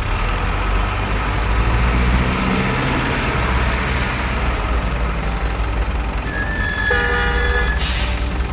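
Radio-controlled model dump truck with a steady diesel-engine running sound, and a horn sounding once for about a second and a half near the end.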